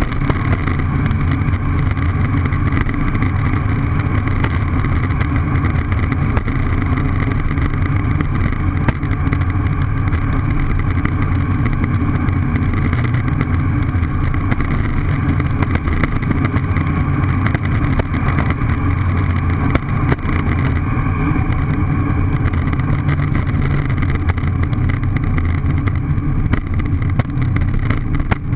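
Longboard wheels rolling at speed over coarse asphalt, a steady, muffled rumble picked up by a camera mounted on the deck.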